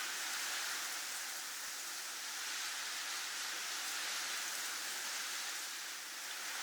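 Snowstorm wind blowing as a steady, even hiss that swells and eases gently.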